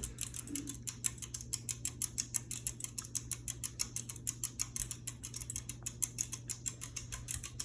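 Minka Aire Carmel ceiling fan running on low: a steady motor hum with a rapid, even ticking, about seven ticks a second.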